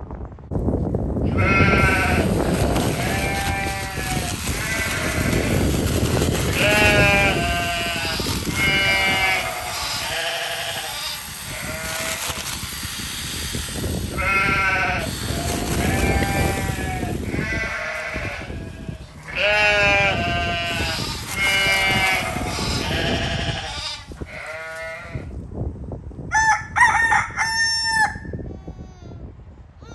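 A farm animal calling over and over, each call about a second long and bending in pitch, in two bouts with a pause between, then a few short, higher calls near the end, over a steady background rush.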